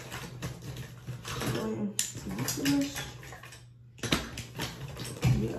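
Makeup brushes and cosmetic containers clicking and clattering as they are sorted through, with a few brief murmurs.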